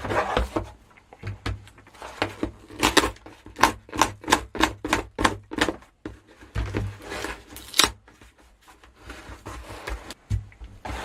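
Hands handling boxed computer hardware and its packaging: a quick, even run of about a dozen short scraping rustles, three or four a second, then a sharper scrape about eight seconds in, with scattered low knocks.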